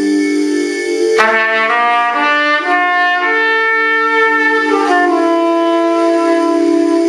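Trumpet playing a slow line of long held notes, moving to new notes about a second in and again near five seconds in.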